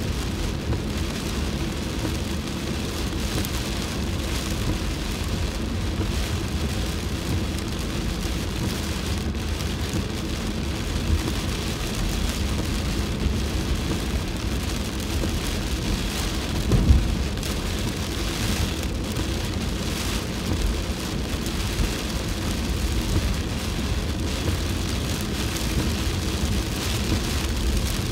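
Heavy rain pelting a moving car, heard from inside the cabin, over a steady low rumble of tyres on the wet road, with the windscreen wipers sweeping. A single brief low thump stands out a little past the middle.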